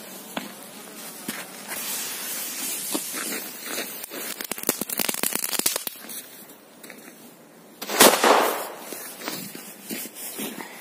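A JFTC2 (Korsar-4) firecracker going off with a single loud bang about eight seconds in. It follows several seconds of scattered crackling and crunching.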